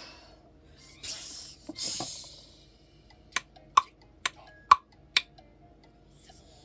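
Two short hissing, rattling bursts, then five sharp clicks about two a second.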